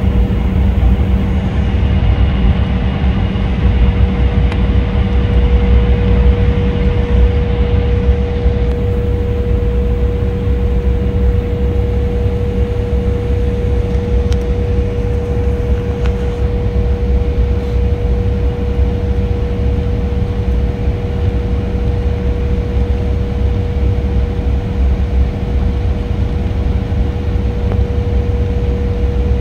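Steady cabin noise of a jet airliner taxiing: a continuous low rumble with one steady hum-like tone held over it.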